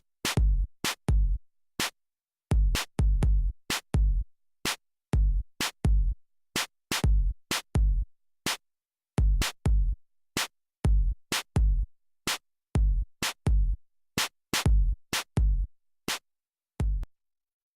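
Sparse electronic drum-machine beat: deep kick-drum hits and sharp clicky hits with short silences between them. It stops about a second before the end.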